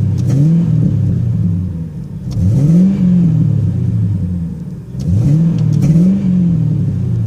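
The 1994 Ford Thunderbird's V8 is revved in four short throttle blips through a glass-pack exhaust. Each time the revs rise and then fall back, and there are small backfire pops on the deceleration while the engine is still cold and warming up.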